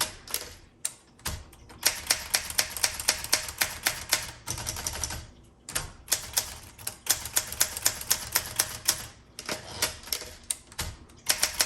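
Keys of a 1968 Olympia SM9 manual portable typewriter being typed: quick, irregular runs of sharp clacks as the typebars strike, broken by short pauses every few seconds.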